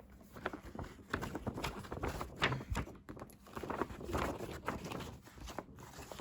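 Hands handling disc packaging: irregular rustling, tapping and clicking.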